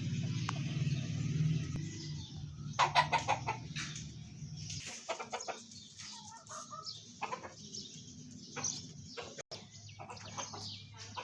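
Desi hens clucking, short separate clucks every second or so. Under them a low steady hum stops about five seconds in.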